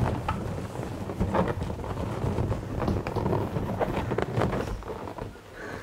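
Inflated latex balloons rubbing and squeaking against each other as a balloon cluster is pressed and twisted along a pipe. Irregular low rumbling handling noise runs under scattered short squeaks.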